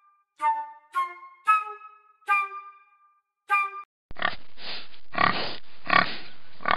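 Five separate musical notes, each fading, then from about four seconds in a domestic pig grunting and oinking over and over, about once every half second or more, over steady recording hiss.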